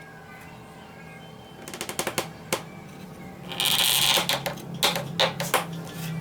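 A quick run of sharp clicks, a loud rasping noise lasting under a second about three and a half seconds in, then a few more sharp knocks, over quiet background music.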